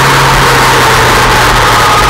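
2003 Yamaha R1's inline-four engine running steadily at speed, under a loud rush of wind across the microphone.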